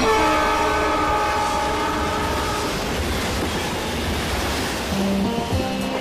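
Passenger train running along the track, its horn sounding for the first two and a half seconds or so over the steady running noise of the wheels. Music begins near the end.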